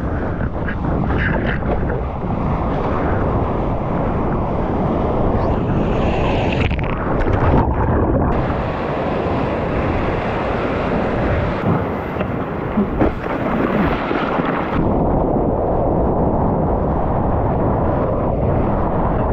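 Rushing seawater and wind buffeting an action camera's microphone during surfing, a loud steady rushing noise with a few sharp knocks a little past the middle.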